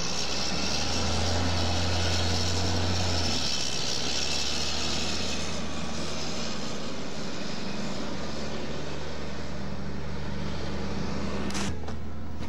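Steady outdoor rumble and hiss of a parking lot at night, with a low hum that swells in the first few seconds. One sharp knock comes near the end.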